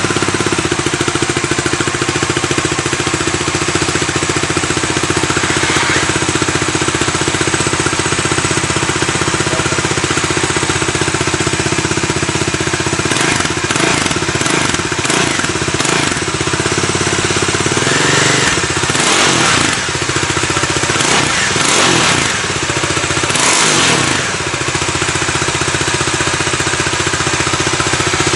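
Bajaj Pulsar 200NS's single-cylinder engine idling steadily. About halfway through it is revved in a series of throttle blips, each rising and dropping back, then it settles to idle again.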